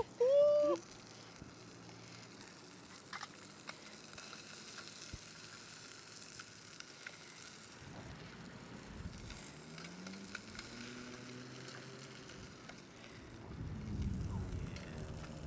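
Fish fillets frying in butter in a hot pan, with a steady, quiet sizzle. Near the end there is a brief, louder low rumble.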